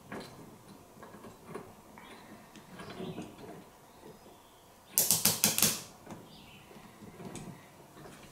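A hose clamp being fitted onto a sprayer hose connection: light clicking and handling noise, then about five seconds in a quick run of about six sharp clicks as the clamp is tightened.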